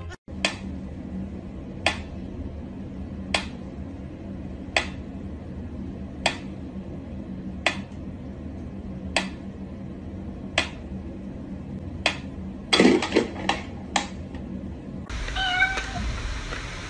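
Mechanical pendulum metronome ticking slowly, one sharp click about every second and a half. Near the end a cat meows once, with a few quicker clicks.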